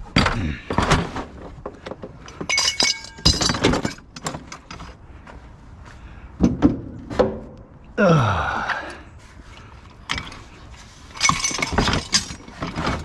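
Scrap metal and junk clanking and clattering as pieces are handled and loaded, a series of knocks with some ringing metallic hits, and a longer scraping sound about eight seconds in.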